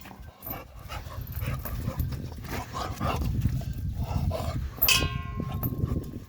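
A puppy panting and snuffling close to the microphone, over a steady low rumble. About five seconds in there is a sharp sound followed by a brief held pitched tone.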